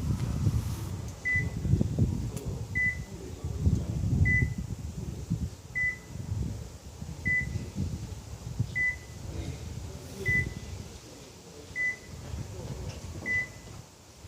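A short, high electronic beep repeating at an even pace about every one and a half seconds, nine times, over an uneven low rumble.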